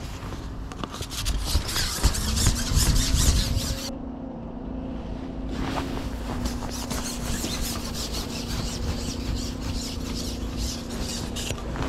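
Wind buffeting the microphone, with the steady engine drone of an excavator starting about two seconds in and holding. Crackly rustles and clicks of handling come and go over it.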